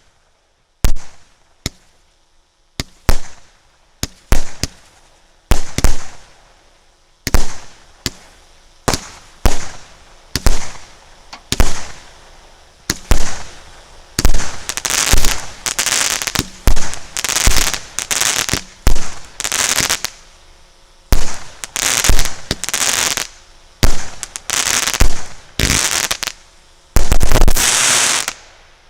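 A 100-shot 0.6-inch firework cake firing. At first it fires single shots, a sharp report about every second or so. From about halfway each shot trails a longer hiss, and a rapid final volley near the end stops abruptly.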